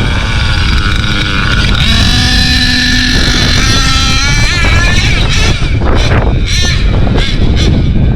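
HPI Savage X4.6 nitro RC monster truck's 4.6 cc two-stroke glow engine at high revs, a high-pitched whine. It holds steady for a couple of seconds, then rises and falls as the throttle is worked. Wind rumbles on the microphone underneath.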